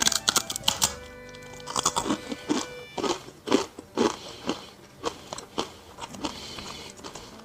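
Close-up crunching and chewing of a puffed brown rice crunchy roll snack, a run of short sharp crunches that thickens near the start and again about halfway through.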